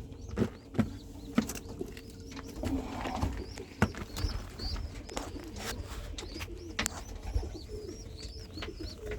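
Pigeons cooing in a loft, with scattered light clicks and knocks. From about four seconds in there is a run of short, high peeps.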